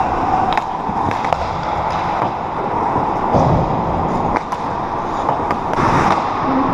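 Ice-hockey rink sounds: a steady din of skates scraping and gliding on the ice, with several sharp clicks of sticks and puck.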